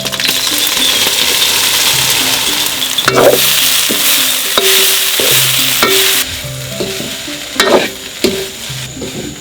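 Food sizzling loudly in a hot pan for about six seconds, then more quietly, with a few knocks and scrapes of a spoon stirring it.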